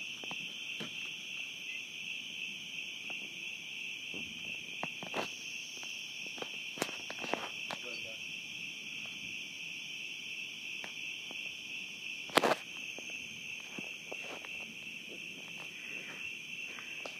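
Steady, high-pitched chorus of night insects trilling continuously, with scattered faint clicks and one sharper knock about twelve seconds in.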